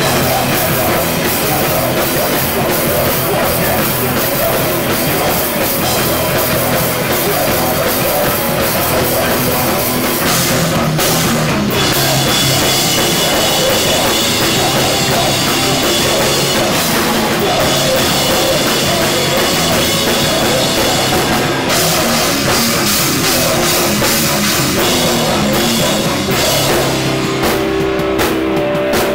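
Loud, fast hardcore punk music with guitars and a pounding drum kit, the sound filling every moment without a break and changing in texture a couple of times.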